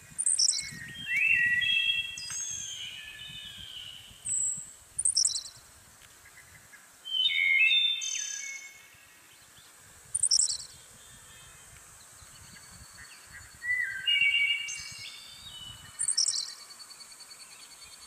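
Birds calling in a forest, in separate short bouts. The calls mix quick high chirps that drop in pitch with lower whistled notes that glide up and down, over a faint steady background hiss.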